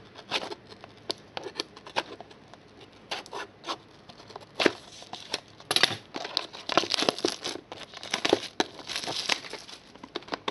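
Scissors snipping open a cardboard trading-card mini box, with crinkling and tearing of its wrapping and the rustle and clicks of the cardboard being handled. A run of sharp clicks and rustles, busiest in the second half.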